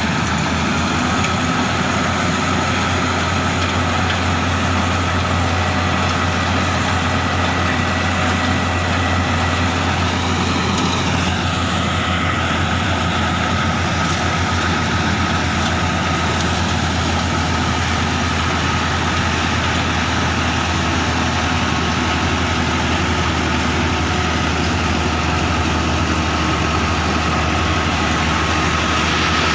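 Wheat harvester machine running steadily, a deep engine drone with a constant whine above it that shifts slightly about eleven seconds in.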